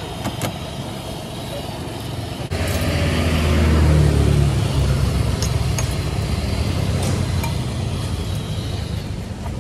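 Street traffic with a motor vehicle passing close by: its engine comes in sharply a couple of seconds in, is loudest near the middle, then fades. A few light metallic clinks of a spatula or fork against the small crepe pan.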